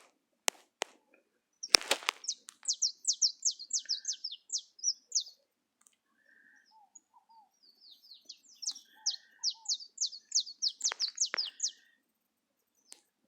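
Canaries singing: two phrases, each a quick run of sharp, falling chirped notes, the first starting about two seconds in and the second about eight seconds in, with a few lower notes between. A sharp click comes just before the first phrase and another near the end of the second.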